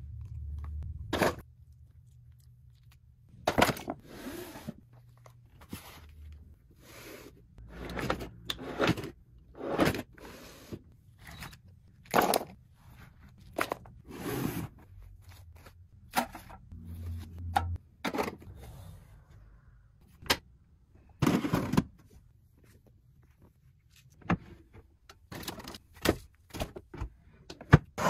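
Small plastic toys being handled and put away: a string of separate clatters, knocks and scrapes, about one every second, with short pauses between.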